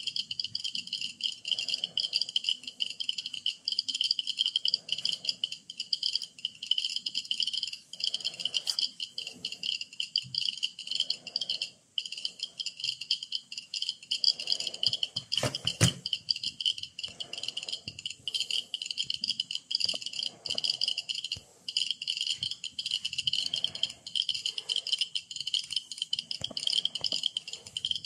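Many Geiger-counter dosimeters clicking at once, their ticks so fast and dense that they merge into a continuous rattling chatter; each click marks a particle registered by a counter tube. One louder knock comes about halfway through.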